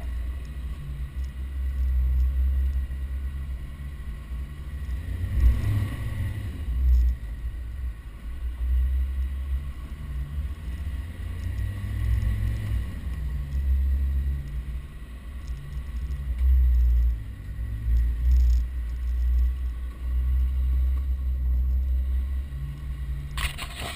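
Land Rover Defender 110 engine pulling through soft sand dunes, heard from its bonnet with a heavy low rumble. The engine note rises and falls with the throttle a couple of times, about five seconds in and again near the middle.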